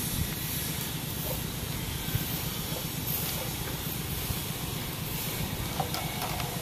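Steady outdoor background noise, a low rumble with a hiss over it, and a few faint clicks of bamboo being handled near the end.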